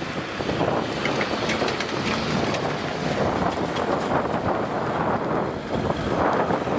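Wind buffeting the microphone, a steady rough rushing with a few small clicks, over the fading rumble of an InterCity 225 express train running away down the line.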